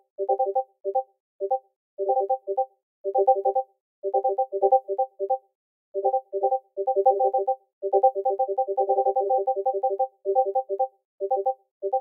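Discord notification pings played over and over: short pitched pings, several a second, in uneven clusters broken by brief gaps, running together into a dense stream about eight seconds in.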